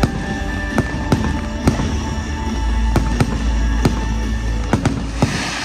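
Fireworks display: a rapid, irregular run of sharp bangs from bursting aerial shells over accompanying music, with a rush of hiss near the end as the bangs die down.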